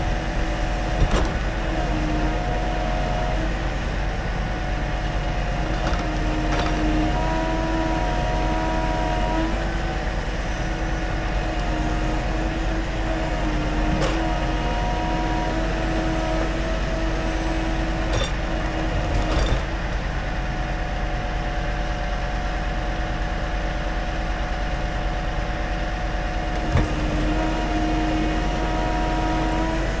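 Scania timber truck's engine and hydraulics running steadily to power its truck-mounted log crane, the pitch stepping up and down every few seconds as the crane works. A few sharp knocks as pine logs are handled.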